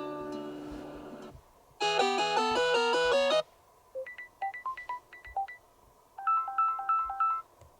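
Built-in Samsung Galaxy Tab S7 FE alarm tones played one after another through the tablet's speaker. First a fading chord ends about a second and a half in. Then come a fast bright run of notes, a sparse few-note melody, and a short repeating figure, each stopping abruptly.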